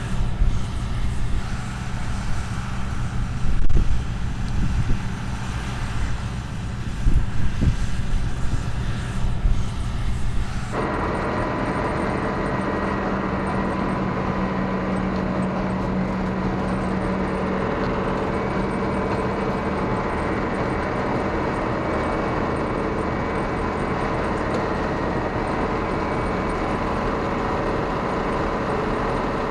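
1976 John Deere 6600 combine running: its six-cylinder diesel and threshing machinery. For the first third the sound is an uneven low rumble that swells and dips. It then changes abruptly to a steady drone with a whine of several constant pitches over the engine.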